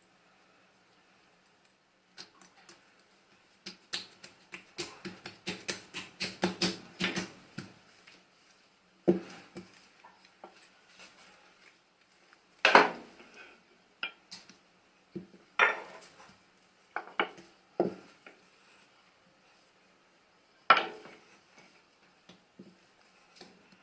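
Kitchen utensils knocking and clinking against dishes: a quick run of small clicks, then a handful of single sharp knocks a few seconds apart.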